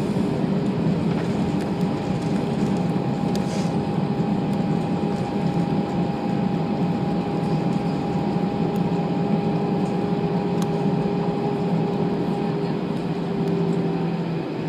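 Airbus A320 cabin noise during the landing roll: a steady jet engine hum over a low, even rolling rumble, the engine tones sinking slightly in pitch near the end as the aircraft slows.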